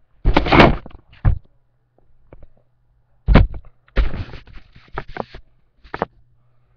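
Handling noise as the webcam is picked up and moved: thumps and knocks, the loudest near the start and about three seconds in, then a run of scraping, rustling scuffs with another knock near the end.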